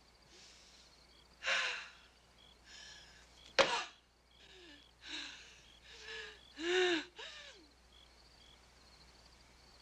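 A woman gasping, grunting and moaning, out of breath from chopping with an axe, with one sharp axe blow into wood about three and a half seconds in. Faint cricket chirps run underneath.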